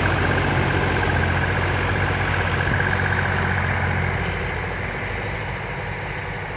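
Iseki SIAL 21 mini tractor's diesel engine running steadily as the tractor moves off with its front loader, growing gradually fainter. A steady high whine over the engine note fades out about halfway through.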